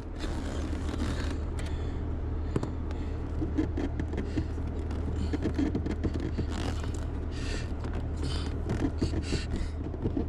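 Irregular scraping and clicking of metal parts as a steering column is worked loose and its shaft slid together, over a steady low hum.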